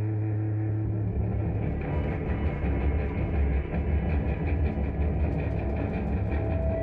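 Improvised noise-rock from a guitar, bass and drums trio: a held droning chord gives way about a second in to a dense, noisy low wash of sound.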